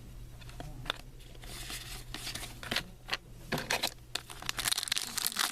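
Trading card pack wrappers crinkling and cards being handled, a run of light crackles and clicks that grows busier near the end.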